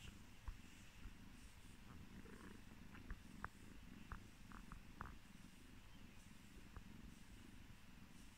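Calico cat purring softly and steadily while her fur is combed, a sign she is content. A few faint short clicks sound over the purr.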